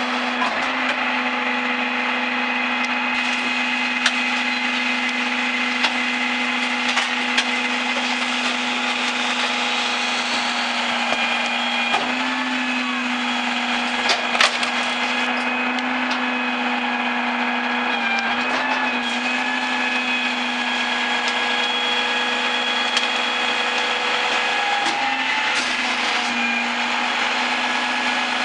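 Mack MRU garbage truck with a Leach 2R3 rear-load body running with a loud, steady whine from its engine and hydraulics. A few sharp metal clanks come through, the loudest about fourteen seconds in.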